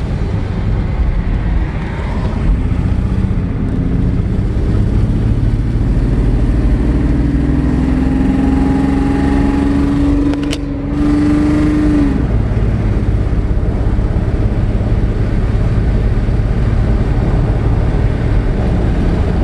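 Car engine and road noise heard inside the cabin while driving. An engine note climbs slowly from about six seconds in and falls away about twelve seconds in. There is a single sharp click about ten seconds in.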